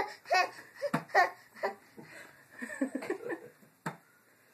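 Giggling laughter in short, high-pitched bursts, then quieter vocal sounds and a single sharp tap near the end.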